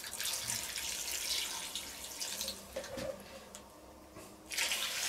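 Vegetable broth poured in a steady stream from a jug into a stainless steel cauldron of browned meat and vegetables, splashing onto the food. The pour falters about four seconds in and picks up again briefly near the end.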